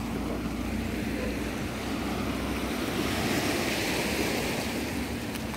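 Small sea waves washing steadily onto a flat rocky shore, with a low wind rumble on the microphone.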